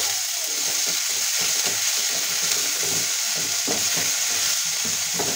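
Chopped onions and garlic sizzling in hot mustard oil in a non-stick kadhai, stirred with a wooden spatula that scrapes across the pan in quick repeated strokes.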